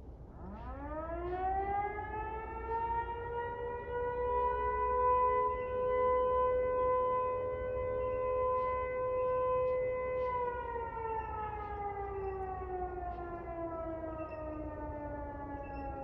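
Outdoor warning siren winding up from about half a second in to a steady howl, holding it for several seconds, then slowly winding down from about ten seconds in.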